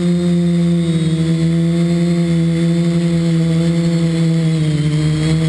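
Quadcopter's electric motors and propellers running with a steady hum, heard close up from a camera on board. The pitch dips slightly about a second in and again near the end as the throttle eases.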